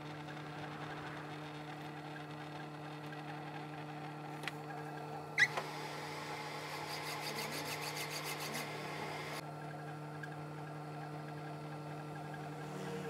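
A manual metal lathe hums steadily. A sharp metallic clack comes about five seconds in, followed by about three seconds of rhythmic scraping at around five strokes a second.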